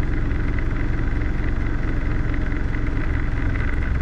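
Robinson R22 helicopter's engine and rotor running steadily, heard from inside the cockpit, sitting on the ground with the collective fully down.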